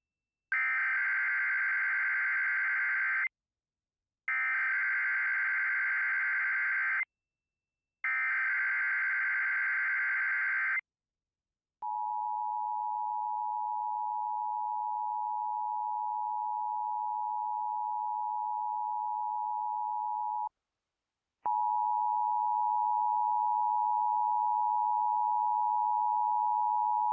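Emergency Alert System relay from a Sage EAS ENDEC, announcing a tornado watch. It opens with the SAME header: three bursts of digital data tones of about three seconds each, with short gaps between them. The steady two-tone EAS attention signal follows for about eight seconds, and after a brief break a second steady alert tone begins.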